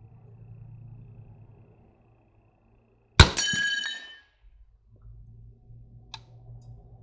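A single shot from an M16A1-clone AR-15 rifle about three seconds in, followed by metallic ringing that fades over about a second, the round striking a steel plate target. A faint low rumble before and after, and a small click near the end.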